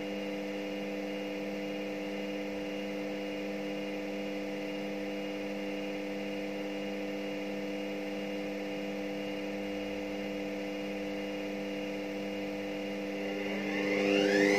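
Front-loading washing machine running an empty spin: a steady motor hum while the drum turns at a constant speed. Near the end the motor's whine rises sharply in pitch and grows louder as the drum speeds up.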